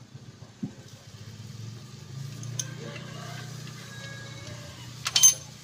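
Steady low hum of a vehicle engine running nearby, with a quick cluster of sharp metallic clicks about five seconds in, the loudest sound, from hand work on the engine.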